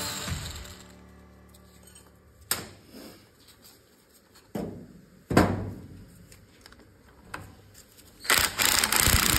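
A few separate metallic clinks and knocks of hand tools and loose parts on a 1952 Citroën 2CV engine, the loudest about five seconds in. Near the end a cordless power driver with a socket extension runs for about a second and a half, spinning a crankcase bolt out.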